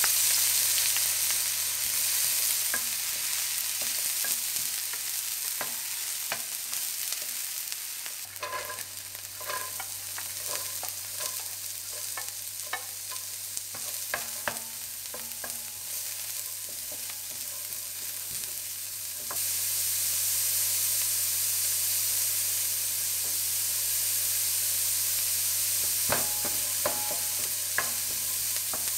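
Chopped green onions and diced carrots sizzling in hot oil in a stainless steel skillet, being fried into scallion oil, stirred with a spatula that clicks and scrapes against the pan now and then. The sizzle grows louder about two-thirds of the way in.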